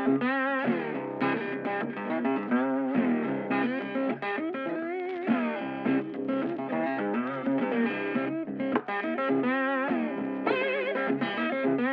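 Background music led by an electric guitar playing wavering, vibrato-laden melody notes over a steady accompaniment.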